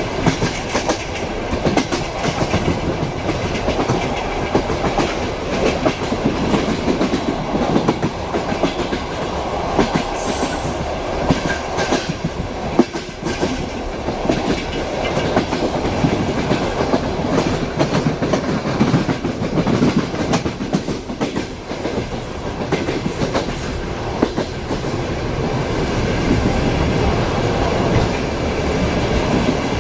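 Passenger train rolling along, heard from inside a compartment: a steady rumble with the rhythmic clickety-clack of the wheels over the rail joints.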